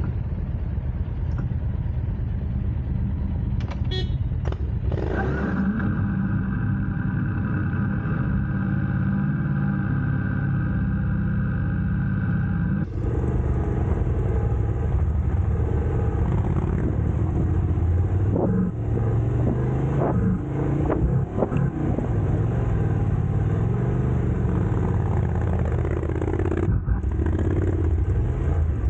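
Motorcycle engine running steadily under way, a continuous low rumble. From about five to thirteen seconds in, its note holds at a steady pitch.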